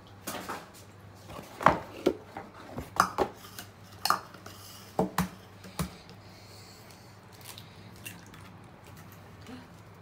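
A jug and a wire whisk knocking against a plastic mixing bowl: a run of sharp clacks through the first six seconds, then quieter whisking in pancake batter.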